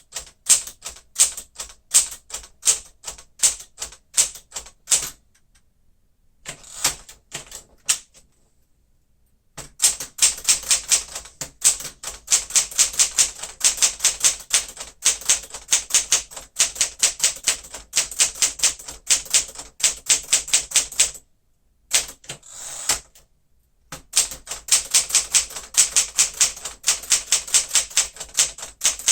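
1961 Smith-Corona Galaxie manual typewriter being typed on: runs of quick, sharp keystrokes with typebars striking the platen, broken by a few short pauses.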